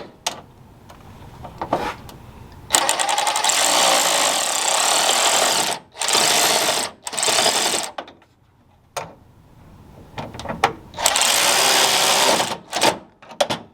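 A power tool runs in four bursts with a rapid hammering rattle, the first about three seconds long, then two short ones and a last one near the end. Faint clicks fall between them.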